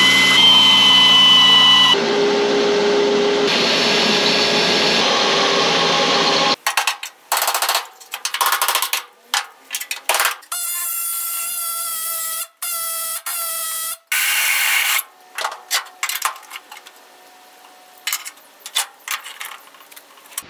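Handheld pneumatic tool cutting spot welds out of a rusted steel quarter panel, drilling and grinding through the welds to separate the old panel. It starts as a steady high whine, then runs in stop-start bursts with a few seconds of pitched whine in the middle, ending in lighter, scattered clicks and scrapes on the sheet metal.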